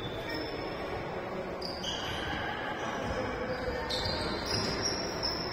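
Athletic shoes squeaking on a sports hall floor during play: several short high squeaks, some starting or ending as others stop, over a steady hall murmur.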